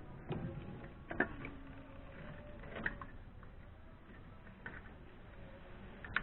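A handful of scattered sharp metallic clicks and clinks from work on the engine, the one about a second in ringing briefly.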